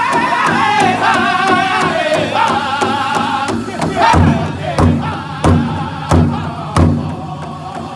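Powwow drum group singing high, wavering lines together while several drummers strike a large rawhide powwow drum in a steady beat. About four seconds in, the singing thins out and the drum gives a run of loud, heavy strikes about two-thirds of a second apart.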